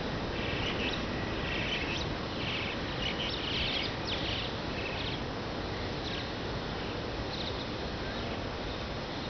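Steady rushing of sea surf breaking on a sandy beach. Short bursts of high chirping calls come and go through the first half.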